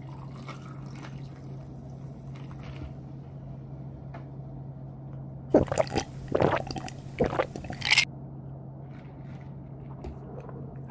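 Canned chūhai poured over ice into a paper cup, fizzing. About halfway through come a few seconds of loud, sharp drinking sounds from the cup. A steady low hum runs underneath.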